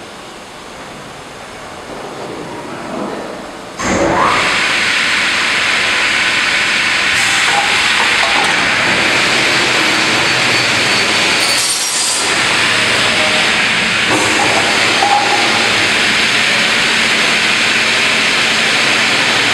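Computer beam saw cutting a melamine-faced particleboard panel: a loud, steady, hissing saw noise that comes in suddenly with a short rising whine about four seconds in, dipping briefly around twelve seconds.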